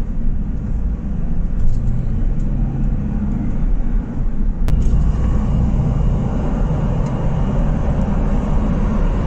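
Cab noise of a Mercedes Sprinter van on the move on a wet road: a steady low engine and road rumble with tyre and wind hiss. A single sharp click comes about halfway through.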